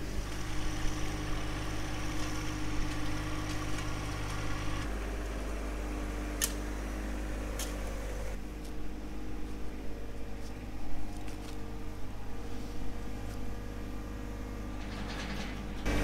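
Compact diesel tractor engine, a John Deere 1025R's, running steadily, with two short sharp clicks about halfway through.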